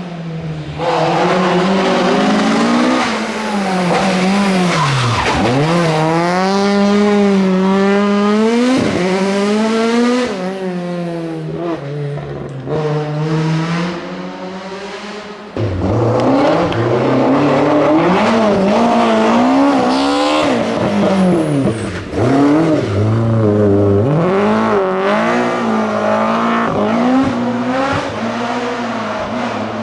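Classic rally car engines driven hard on a stage, revving up and dropping back repeatedly through gear changes and lifts off the throttle. There is an abrupt jump in loudness about halfway through.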